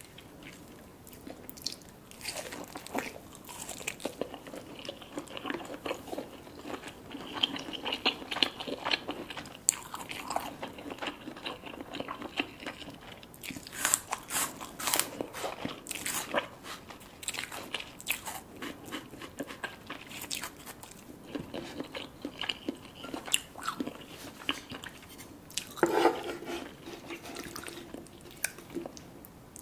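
Close-miked eating: a continuous run of sharp, irregular crunches as crisp food is bitten and chewed.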